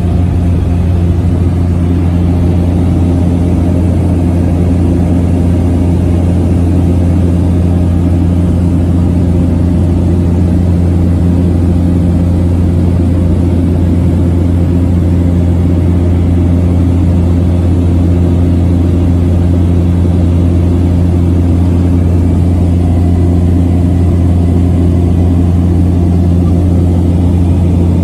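Steady drone of a small propeller aircraft's engine and propeller in flight, heard from inside the passenger cabin: a deep, even hum with several steady tones above it.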